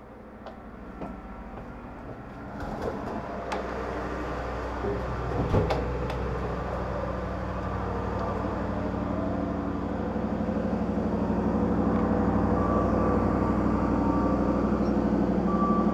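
Train's diesel engine running steadily, getting louder over the first several seconds as the carriage door is opened, with a few clicks and knocks in the first half.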